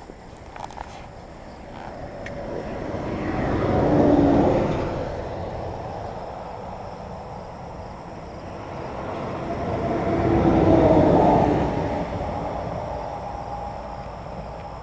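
Two vehicles on the highway passing close by, one after the other. Each builds up to a loud peak and fades away, the first about four seconds in and the second about eleven seconds in.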